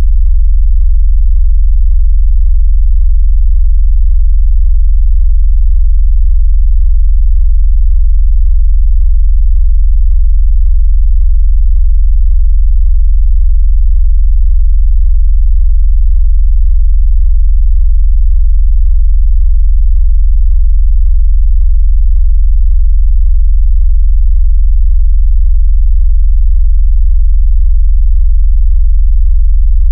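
Deep synthetic bass tone: a steady, very loud low hum with a fast, even flutter, generated to make a phone vibrate and to push water out of its speaker.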